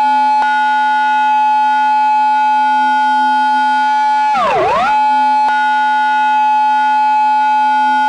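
Reproduced Japanese police car siren in its intersection-entry pattern: a loud, steady high wail held for several seconds that swoops sharply down and straight back up once about four and a half seconds in.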